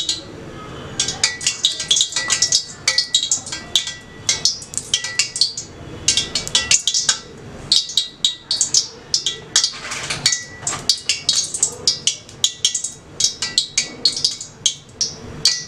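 Hot oil with a spoonful of ghee sizzling in a stainless steel pot: dense, irregular crackling and popping as the ghee melts in.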